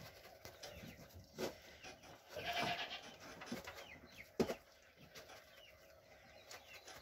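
A goat bleats once, briefly, a little over two seconds in. There are two sharp knocks and some faint high chirps.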